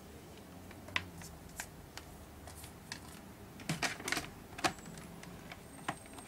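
Light, scattered clicks and taps of small objects being handled on a workbench, with a quick run of several clicks a little under four seconds in.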